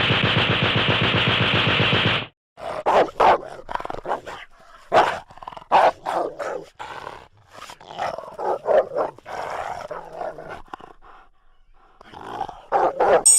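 Cartoon sound effect of a dog growling and barking: a long buzzy growl for the first two seconds, then a run of short, irregular barks and yaps.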